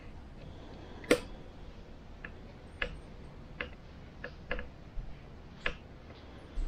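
A string of about nine short, sharp clicks and taps at uneven spacing, roughly one every half second to second, the loudest a little after a second in, over low background hiss.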